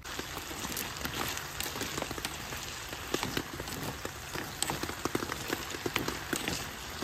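Slices of meat and apple wedges frying in oil in a pan: a steady sizzle scattered with many small pops and crackles of spitting fat.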